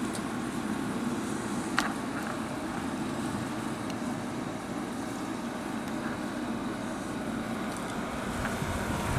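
Haier 5,000 BTU window air conditioner running with its fan on high and the compressor cooling: a steady rush of air over a low hum, with one brief click about two seconds in.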